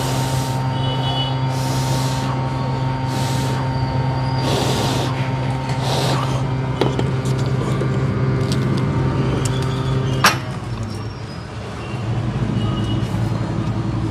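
Hot air rework station's blower running with a steady hum, with short hisses of air about every second and a half in the first half. About ten seconds in, a sharp click, and the hum drops and then comes back quieter.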